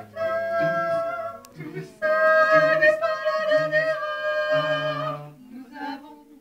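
Small vocal group singing in harmony without instruments, a high voice holding two long notes, the second about three seconds long, over lower voices.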